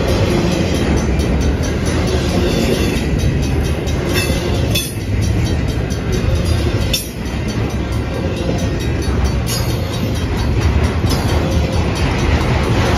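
Intermodal freight train of double-stack container cars and trailer flatcars rolling past close by, a steady heavy rumble of steel wheels on rail. A few sharp clanks from the cars stand out above it, about four, five and seven seconds in and again near nine and a half.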